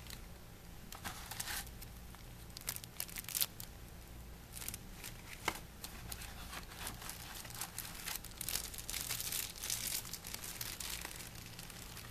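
Thin plastic wrapping crinkling and crackling as a bagged hair trimmer is handled and pulled out of its moulded pulp tray: irregular sharp crackles, busiest in the second half.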